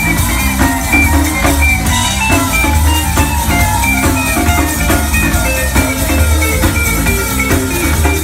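Live band playing an instrumental passage: electric bass guitar and drum kit under a quick lead line of short, stepping high notes.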